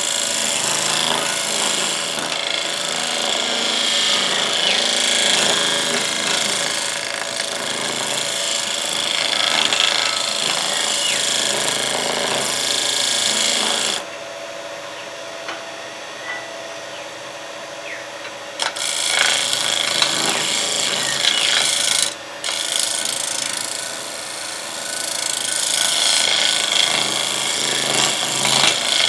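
A turning gouge cutting golden cypress (Cupressus macrocarpa) spinning on a wood lathe: a continuous scraping hiss of the tool shaving the wood. It drops to a quieter level for about five seconds in the middle, then resumes.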